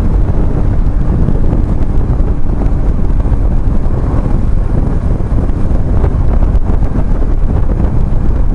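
Steady, loud wind rush on the microphone from riding a BMW R1150GS motorcycle, with its boxer-twin engine running underneath.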